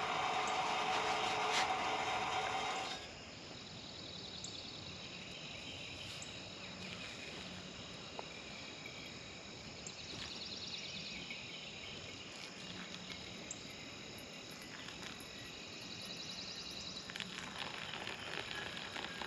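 A propane camp stove burner runs with a steady hiss and hum, then cuts off suddenly about three seconds in. Afterwards insects trill in the background. Near the end, hot water is poured from a pot into a pour-over coffee dripper.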